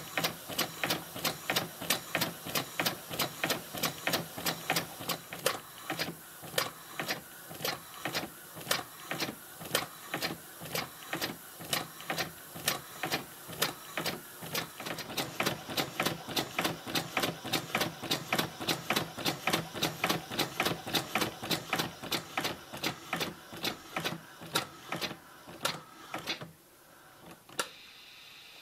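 Fischertechnik grasshopper half-beam model engine running on compressed air: a fast, even clicking of about three beats a second from its pneumatic cylinder, valve and plastic linkage. Near the end the clicking stops suddenly, leaving a steady hiss of air.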